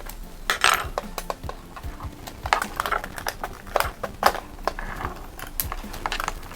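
Irregular small plastic clicks and taps with some rustling: batteries and a plastic battery compartment being handled as two batteries are fitted into a remote-control toy excavator.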